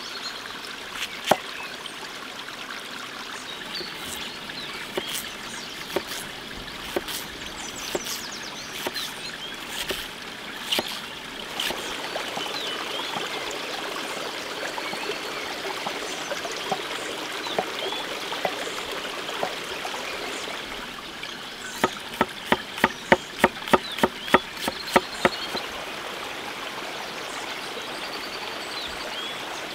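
Knife cutting on a wooden cutting board, the large curved blade going through an onion: a sharp chop just after the start, scattered cuts, then a quick run of about a dozen chops, about four a second, near the end. A forest stream runs steadily underneath.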